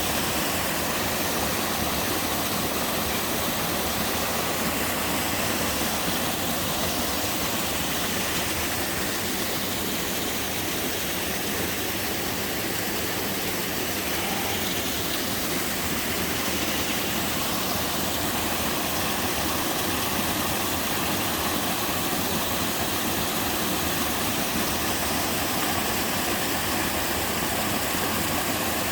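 Mountain waterfall pouring into a stream, the water rushing in a steady, unbroken roar.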